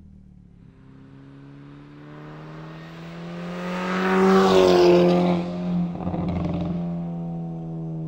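Volkswagen Mk6 GTI's turbocharged four-cylinder, breathing through a 3-inch CTS downpipe and 2.5-inch Rev9 cat-back exhaust with resonators, driving past under power with a zingy, high-pitched exhaust note. The note builds to its loudest about four to five seconds in, drops in pitch as the car goes by, then fades away.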